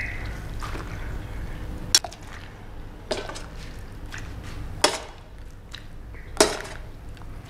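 Metal tongs knocking and clicking against a plastic tub while boiled cassava leaves are stirred in cold water, with light sloshing of water. Four sharp clicks stand out over the stirring.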